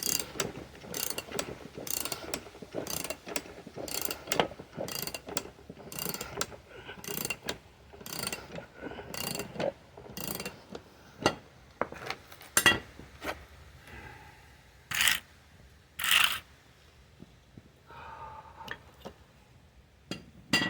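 Hand-tool work on the seized wheel hub of a Sears Suburban SS16 transaxle: metallic strokes repeat about twice a second with a faint ring, then a few louder single knocks or scrapes after about twelve seconds.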